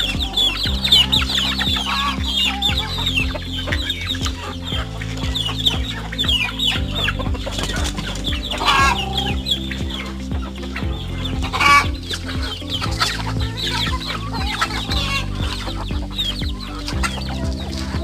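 Flock of young native chickens clucking and calling while they feed, with many short high falling calls and two louder calls about midway. Background music with low held notes runs underneath.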